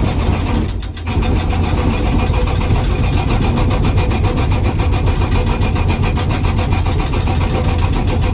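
Hydraulic breaker on a Komatsu PC200 excavator hammering hard rock in a rapid, steady run of blows, over the excavator's running diesel engine. The hammering drops away briefly about a second in, then resumes.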